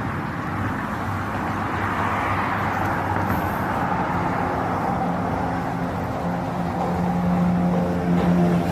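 A steady low motor hum under a continuous rush of noise, growing louder in the last few seconds.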